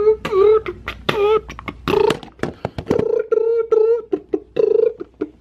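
A man beatboxing with his mouth: sharp clicks and pops between short, wavering hummed notes.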